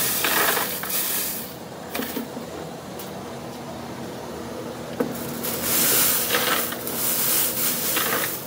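Metalworking machinery running with a steady hum, broken by loud hissing surges near the start and again from about five and a half seconds in, with a few sharp clicks between.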